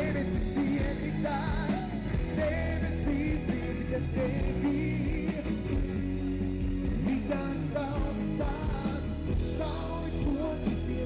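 Amplified live concert music: a voice singing a wavering melody over a band with a steady bass.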